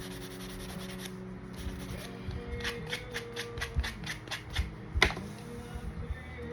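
Hands working over the craft pens, a quick run of light clicks and rubbing at about four a second from a couple of seconds in, with one louder knock about five seconds in. Soft background music plays underneath.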